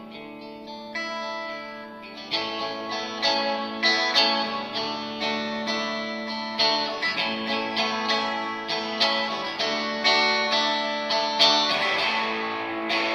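Fender Stratocaster electric guitar played through a Fender Hot Rod Deluxe amp: a line of separately picked notes over a steady held low tone, getting louder about two seconds in.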